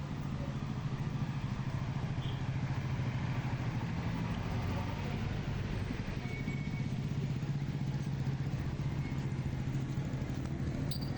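A motor vehicle engine running steadily with a low hum, amid city street noise.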